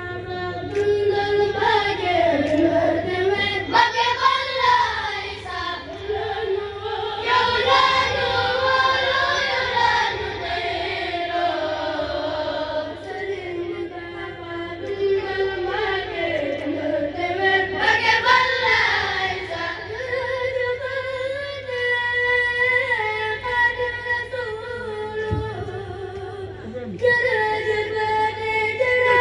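A group of boys chanting a Mouride zikr together, unaccompanied, in long phrases whose melody rises and falls. A steady low hum runs underneath.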